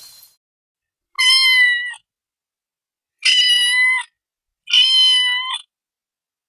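Three high-pitched cat meows, each lasting under a second, coming about a second in, at three seconds and near four and a half seconds.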